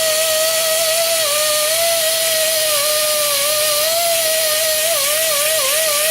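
Die grinder running at high speed while polishing a steel connecting rod beam: a steady high whine over a hiss, its pitch dipping in small wobbles as it bears into the metal, most around five seconds in.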